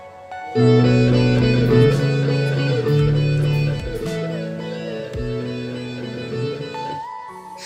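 Music led by a plucked guitar, starting about half a second in and slowly getting quieter.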